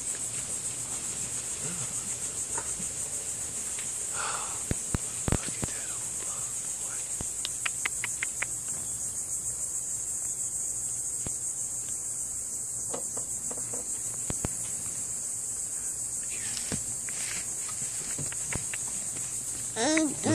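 Steady high-pitched chorus of insects, with a few sharp clicks about five seconds in.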